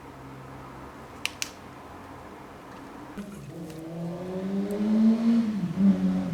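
Two sharp clicks, then a Miele W2241 washing machine's brushed drum motor starting up on fresh carbon brushes. Its whine rises in pitch as it brings the drum up to speed and dips briefly near the end, showing the motor turning again after the brush replacement.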